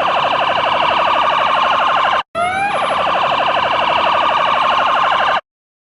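E2QB electronic siren sounding a fast pulsing phaser tone. It cuts out briefly about two seconds in, comes back with a short rising sweep, and stops abruptly near the end.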